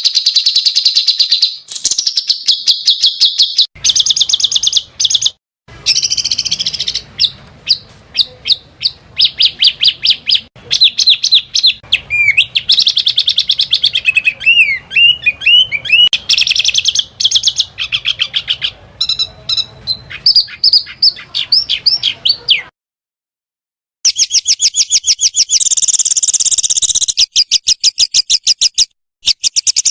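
Small songbirds singing in rapid-fire bursts of fast, high-pitched repeated chirps and trills. Several recordings are spliced together with abrupt cuts, and there is a second of silence a little past the middle. This is 'tembakan' (fierce volley) song, compiled as masteran material for teaching competition songbirds.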